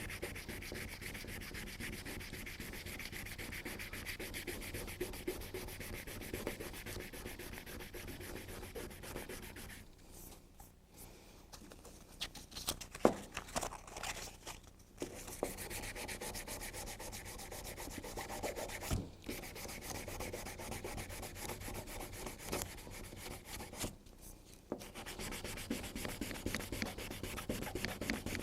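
Sandpaper being rubbed by hand, dry, over a plastic car lamp lens: quick back-and-forth scratchy strokes that pause twice briefly. A few sharp knocks come around the middle, the loudest about 13 seconds in.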